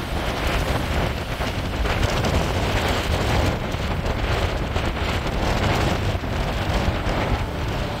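Storm wind buffeting the microphone over heavy surf churning and breaking on a rocky shore: a steady, loud rush of noise with a deep rumble underneath.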